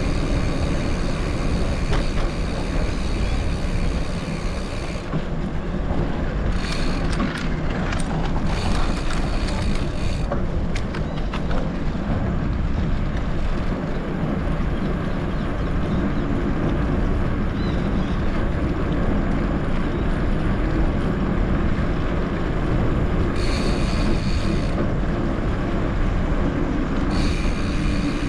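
Gravel bike ridden off-road: steady rumble of tyres and wind on the microphone, with a high buzz that cuts in and out several times.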